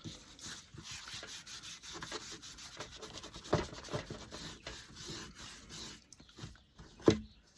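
Hand sanding a painted wooden board in quick back-and-forth scratchy strokes, with a louder knock about halfway through. This is the paint being rubbed back over a Vaseline resist to distress it.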